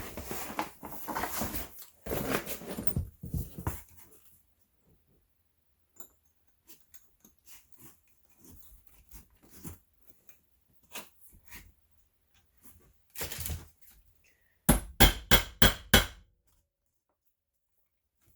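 Hands working a leather tool belt and its hardware: rustling and handling for the first few seconds, then scattered small clicks, then a quick run of about six sharp knocks in just over a second, a little before the end.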